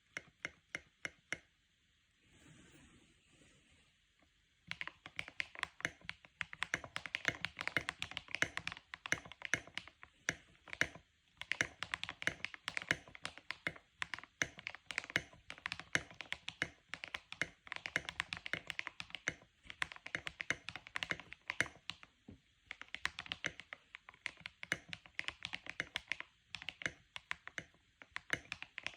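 Typing on a MOJO75 mechanical keyboard with tall SA-profile keycaps. A few single keystrokes come first, then after a short pause a fast, continuous run of clacking keystrokes with brief breaks.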